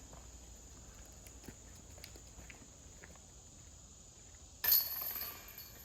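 Steady high insect buzzing with a few faint clicks. About four and a half seconds in comes a sudden metallic clatter lasting about a second, typical of a putted disc striking a disc golf basket's chains.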